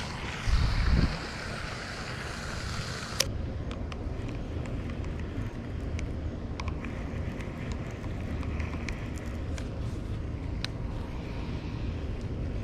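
Wind rumbling on an action camera's microphone, with a louder gust about half a second in and scattered faint ticks.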